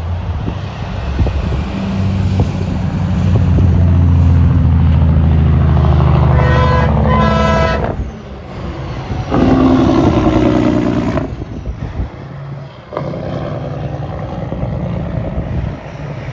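Semi truck's engine compression brake (Jake brake) running as the truck slows, a loud, steady low rumble that builds for several seconds and fades after it passes about 8 s in. Higher tones sound briefly near the end of the braking and again about 10 s in, with lighter traffic noise afterwards.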